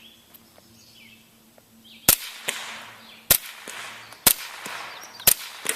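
Four suppressed 9mm pistol shots, about a second apart, fired through a wet suppressor (water inside the can to damp the report); each is a sharp crack with a brief echo after it. The first comes about two seconds in.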